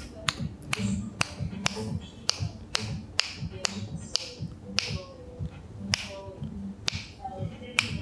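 Sharp finger snaps, about two a second, made in front of and behind a shotgun microphone to test its directional pickup.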